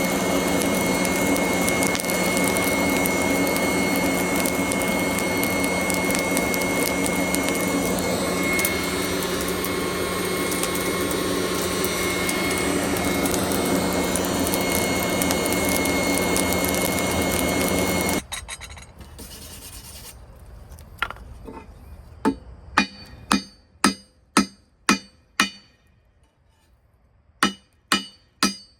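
A power tool runs steadily with a constant whine, then shuts off about 18 seconds in and spins down. Then comes a series of sharp ringing taps, about two a second.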